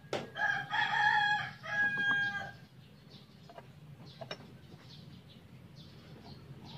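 A rooster crowing once, one pitched call about two and a half seconds long. It comes just after a sharp click at the start, and small birds chirp faintly behind it.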